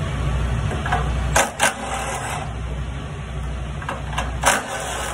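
Three sharp metal knocks with a short ringing tail, two close together about a second and a half in and one near the end: a hammer striking the truck's diesel particulate filter housing to work it loose. A steady low hum runs underneath.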